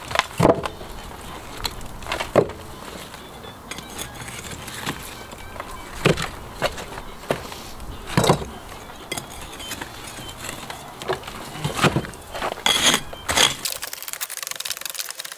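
Hammer and cold chisel knocking out old bricks and lime mortar from a brick wall: sharp strikes at irregular intervals a second or more apart, with a quicker run of strikes near the end.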